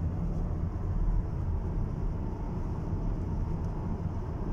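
Steady low rumble of a car's road and engine noise heard from inside the cabin while driving at highway speed.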